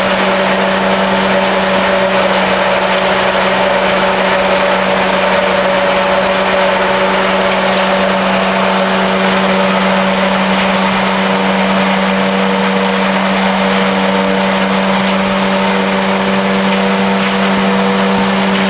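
Biomass shredder running: a loud, steady hum over a dense rushing noise, with no change in speed. Wild artichoke (cynara) stalks are being fed in to be ground fine, to 4 mm at most, for a pellet mill.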